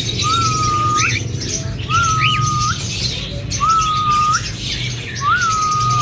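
Cockatiel whistling the same call four times, about every second and a half: each a level note that ends in a quick upward flick, over a steady low hum.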